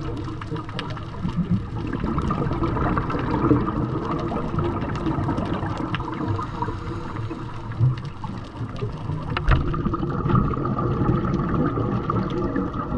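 Underwater sound heard through a camera's waterproof housing: a steady, muffled rush of water with bubbling, and scattered sharp clicks throughout.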